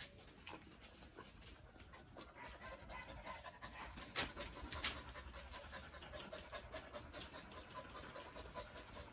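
A dog panting softly, with a couple of sharper clicks about four and five seconds in.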